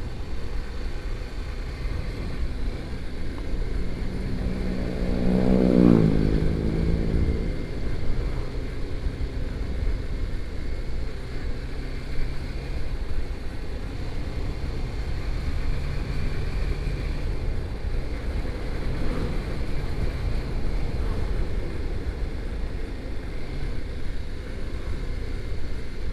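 Riding noise on a motorcycle: steady engine and wind rumble, with an engine rising in pitch and getting louder about four to six seconds in.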